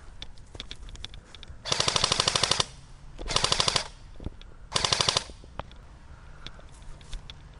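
Airsoft gun firing full-auto in three short bursts of rapid, evenly spaced shots, the first about a second long and the next two shorter. Fainter single clicks come in between.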